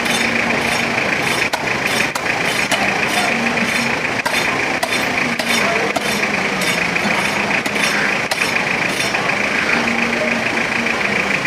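Steady street traffic noise with engines running. Over it come repeated short, sharp scraping strokes of a knife working on a large catla fish, a few strokes a second.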